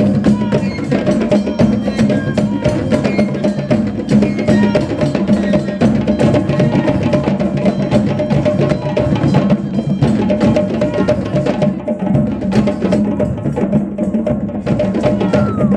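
Percussive music with a fast, dense run of sharp wood-block-like clicks over a steady low tone.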